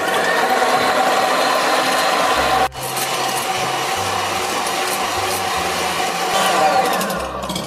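Electric hand mixer running at speed, its twin beaters whirring through raw eggs as they are beaten to a froth. There is a brief break about two and a half seconds in, and its pitch falls near the end as it slows.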